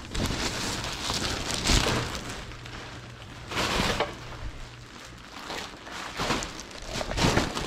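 Packaging rustling and crinkling in several uneven bursts as merchandise is handled and sorted.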